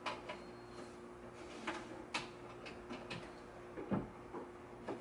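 Scattered light clicks and knocks of cables and plugs being handled behind a TV stand, the strongest knock about four seconds in, over a faint steady hum.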